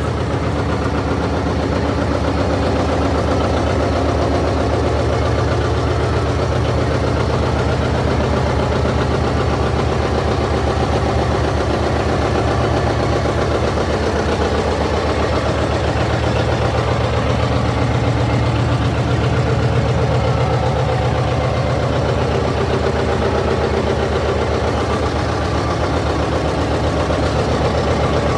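John Deere tractor engine running steadily at idle, heard from the operator's seat, with an even firing beat.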